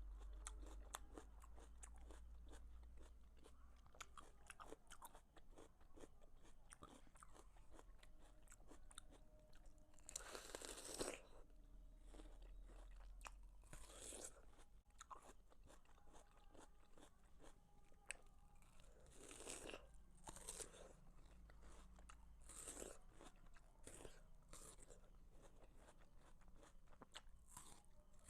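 Watermelon being bitten and chewed: faint, steady crunching and chewing, with several louder bites spread through, the loudest about ten seconds in.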